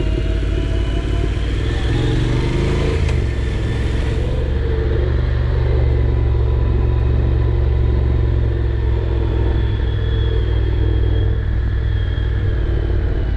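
Honda NC750X's parallel-twin engine running as the motorcycle is ridden along. The engine note rises about two seconds in and falls back sharply about a second later, then holds steady.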